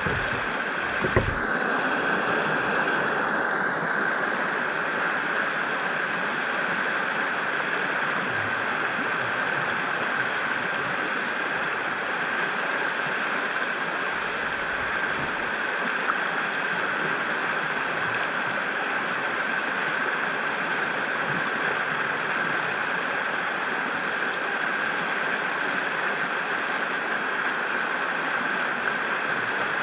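Steady rush of a high, fast-flowing river, with a brief low knock about a second in.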